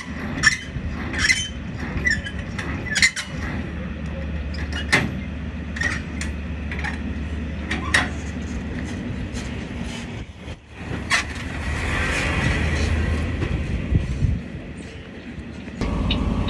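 Semi-trailer landing gear being cranked by hand: the crank and landing-gear gearbox give repeated, unevenly spaced metallic clicks and clanks, roughly one a second.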